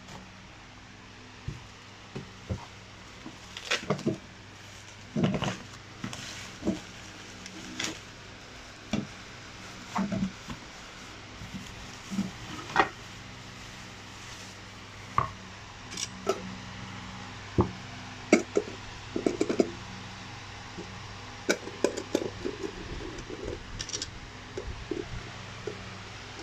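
Irregular knocks, clatters and short rustles of a cardboard box and bubble-wrapped plastic blender parts being handled and unpacked, over a low steady hum.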